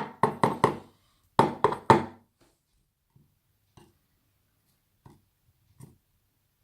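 Small, sharp clicks and taps from handling the padlock's pins and parts: four quick taps, then three more about a second and a half in, then a few faint single clicks.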